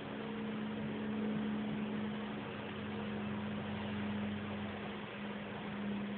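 Steady hum and hiss of a car running, heard inside its cabin, with no breaks or changes.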